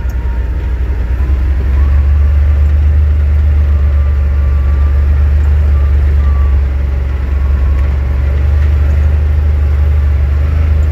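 Yamaha RMAX 1000 side-by-side's parallel-twin engine heard from inside the cab, pulling on light throttle over a dirt trail: a deep, steady drone that grows louder about two seconds in.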